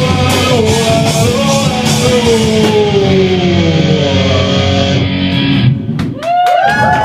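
Live rock band playing, with electric guitar, bass and drums with cymbals, and the end of a song: the band cuts off about five seconds in.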